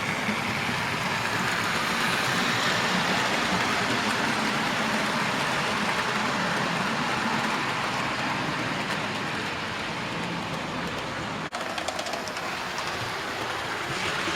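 Model railway train running along the layout's track, a steady motor and wheel-on-rail noise, with a brief break about eleven and a half seconds in.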